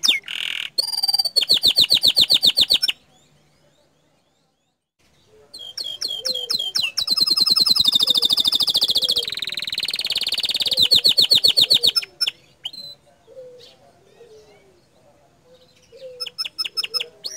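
Domestic canary singing fast, rapid-fire trills of repeated high notes (its 'tembakan' bursts). A pause of about two seconds, then a long run of song, then scattered single notes and a short trill near the end.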